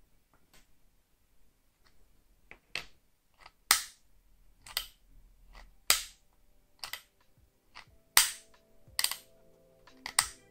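Sharp, irregular clicks and snaps from a handmade wooden crossbow and its metal fittings being handled, about one a second, the loudest near the middle. Soft background music joins near the end.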